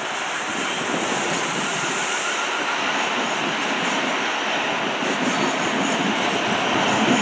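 Thameslink Class 700 electric multiple unit passing close by at low speed: a steady rush of wheels on rail and running gear that grows slightly louder as the carriages go by.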